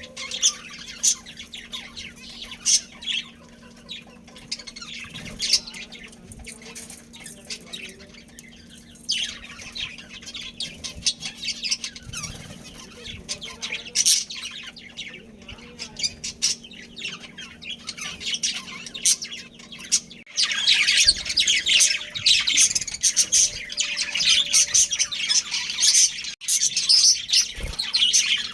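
Budgerigars chirping and chattering in many short, quick calls; the chatter grows much denser and louder about two-thirds of the way through.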